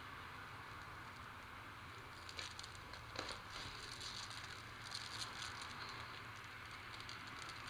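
Light rustling, crinkling and small taps of hands handling and working on a wall-mounted air-conditioner cleaning hopper, loudest in the middle, over a steady faint hiss.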